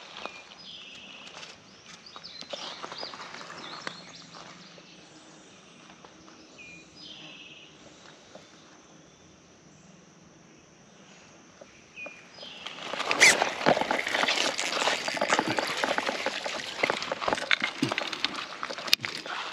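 A bird repeats a short high call over quiet creekside background. About thirteen seconds in, footsteps crunch loudly and irregularly on creek gravel.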